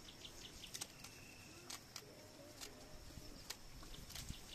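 Faint outdoor rural background with small birds chirping, one thin drawn-out call about a second in, and low wavering calls. A few sharp clicks come through at scattered moments.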